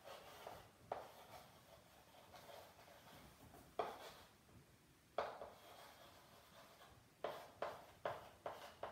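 Chalk writing on a blackboard: faint scratching broken by sharp taps as strokes start. The taps are spread out at first, then come several in quick succession near the end.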